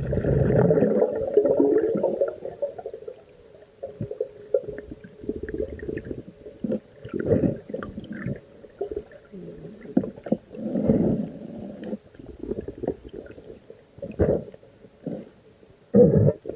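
Muffled underwater sound as a diver moves through the water: swirling water noise, loudest in the first two seconds, then uneven surges and a few short knocks.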